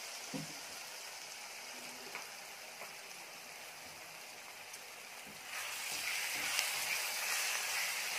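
Chopped onions and green chillies sizzling in hot oil in an earthenware pot. The sizzle grows louder about five and a half seconds in, as a wooden spatula starts stirring them.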